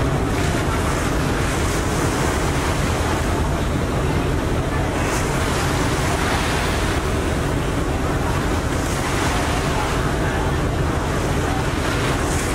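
Harbour water rushing and splashing steadily past the hull of a Star Ferry, heard from the open lower deck, over a steady low drone from the ferry. Wind buffets the microphone.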